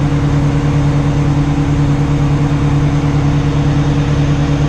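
An engine idling steadily, a constant hum with an even, fast pulse and no change in speed.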